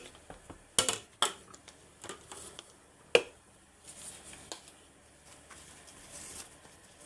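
Kitchen things being handled: a few sharp knocks and clinks, the loudest just under a second in, again at about a second and a quarter, and just after three seconds, with lighter clicks between.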